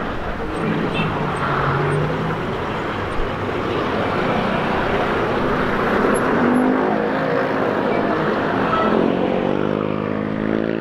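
Motorcycle ridden in city traffic: steady engine and road noise, with the engine's pitch climbing over the last few seconds as it accelerates away.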